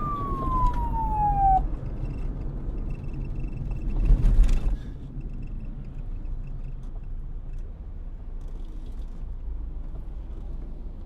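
Police siren finishing a wail, falling in pitch and cutting off about a second and a half in, over a steady low street rumble. A brief loud rush of noise comes about four seconds in.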